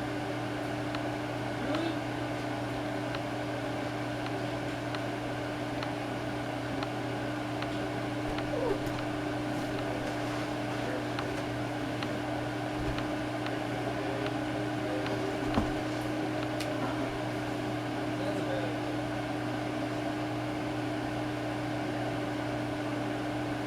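Tatung hugger ceiling fan running at medium speed: a steady motor hum with one constant tone. A single sharp click about two-thirds of the way through.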